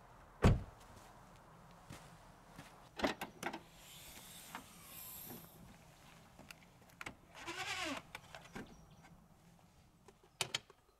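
A car door slams shut about half a second in, the loudest sound. Then come a few clicks, a soft hiss as the Audi estate's tailgate opens, and a short squeak that rises and falls in pitch.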